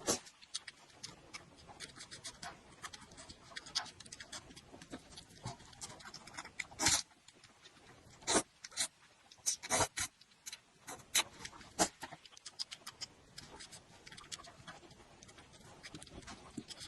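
Close-miked eating sounds: irregular wet chewing clicks and mouth smacks, with a few louder crunches.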